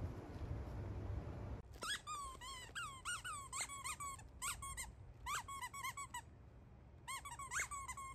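A squeaky dog toy squeaking in quick runs as a corgi bites and chews it. The squeaks start about two seconds in, after a stretch of low background noise, and come in bursts of several with short pauses between.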